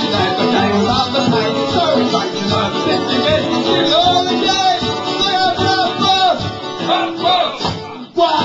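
Live acoustic folk-punk band: a man singing at the microphone over strummed acoustic string instruments. The music breaks off for a moment just before the end, then comes back in.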